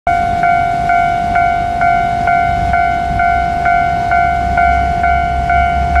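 Japanese railway level-crossing warning bell ringing, a steady clanging tone struck about twice a second, signalling that the barriers are down for an approaching train.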